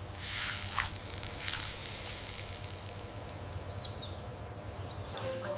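Food sizzling in hot oil in a pan: a steady hiss with a faint low hum underneath, a little louder in the first second and a half.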